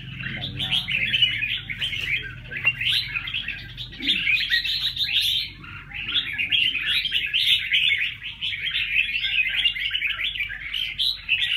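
Many caged songbirds chirping and twittering at once in a dense, continuous chorus, with a brief lull about five and a half seconds in.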